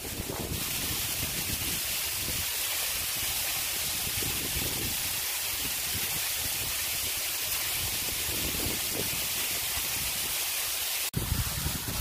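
Waterfall rushing close by: a steady hiss of falling water and spray, with gusts of wind buffeting the microphone. It changes abruptly about eleven seconds in to a closer, heavier low rumble.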